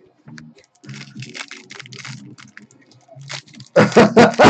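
Foil wrapper of a trading-card pack crinkling and tearing as it is opened, with faint clicks and rustles over a low TV broadcast murmur. Near the end a loud, excited voice cries out.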